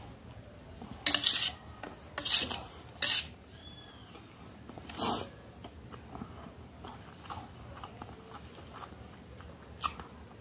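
Metal spoon scraping and clinking on a stainless steel plate as rice is scooped up, in several short, sharp strokes, the loudest in the first three seconds.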